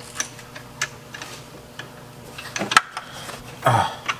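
Scattered light clicks and clinks of metal hardware being handled as a bolt is started by hand on a wheel hub assembly, with one sharp click a little before three seconds in and a brief falling sound near the end.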